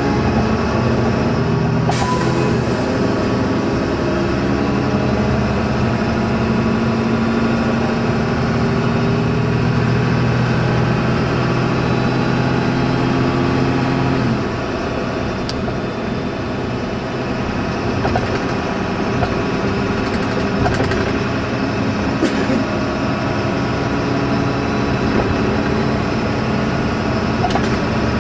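Inside a Neoplan N4020 city bus under way: its MAN D0826 six-cylinder diesel runs steadily under load together with road and drive noise. About halfway through the engine note falls away and the sound gets a little quieter, then carries on; a few sharp clicks of interior rattle sound on top.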